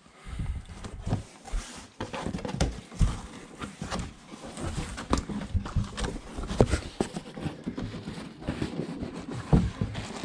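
Cardboard shipping box being opened by hand: flaps pulled back and handled, with irregular knocks, scrapes and rustling.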